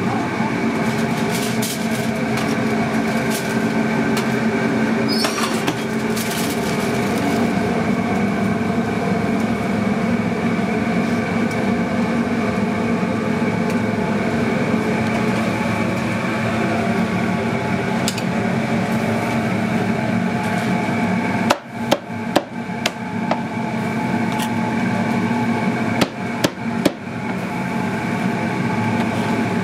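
Cleaver chopping jerk chicken on a plastic cutting board: a quick run of sharp chops about two-thirds of the way in and a few more near the end, over a steady background hum.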